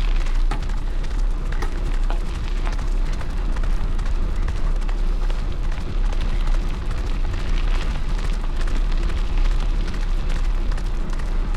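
Steady rumble of wind buffeting the microphone and a bike rolling along a trail while pulled by a two-dog team, with a few faint clicks.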